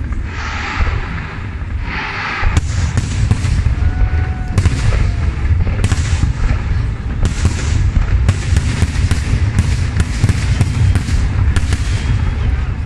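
Aerial fireworks display. After a couple of short hissing patches, shell bursts set in about two and a half seconds in and come as a rapid run of sharp bangs, several a second, over a continuous deep rumble.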